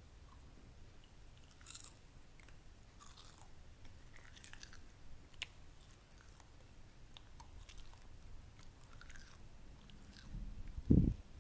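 Close-miked chewing of a baked egg wrap, with scattered soft, crisp crunches. A low thump near the end is the loudest sound.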